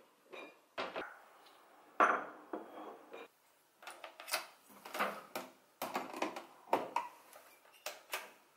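A run of sharp clicks and knocks from kitchen handling: a wooden cabinet door shutting, a porcelain cup and saucer clinking down on the counter, and a Nespresso Pixie capsule machine's lever worked with a capsule dropped in. The loudest knock comes about two seconds in, and the lever clacks shut near the end.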